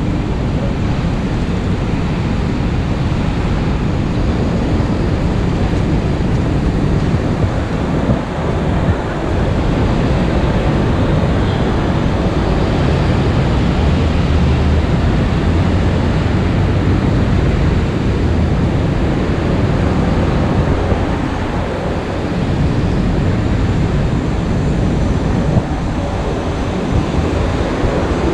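Steady city street ambience in the rain: a continuous hiss over a heavy, uneven low rumble of traffic, with no single event standing out.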